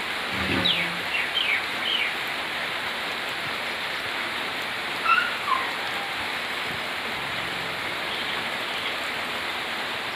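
Steady hiss of rain with birds calling over it: a quick run of short falling chirps in the first two seconds and a few falling notes about five seconds in.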